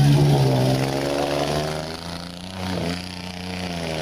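Ford pickup truck's engine revving under load as it pushes through deep water, its pitch sagging and climbing again several times, with water splashing around it.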